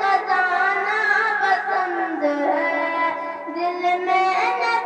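A boy singing a naat solo into a microphone, with long held notes that bend and waver in pitch.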